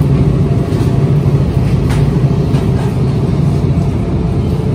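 Steady low rumble of grocery-store background noise along a refrigerated aisle, with a few faint clicks.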